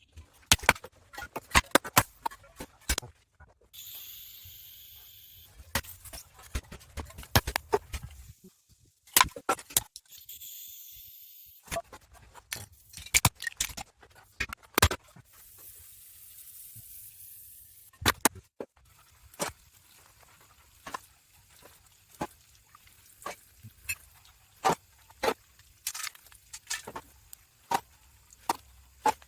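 Hard rubbish being handled and sorted: a long run of irregular clicks, knocks and clatters as items are picked up and set down, with a few short stretches of hiss.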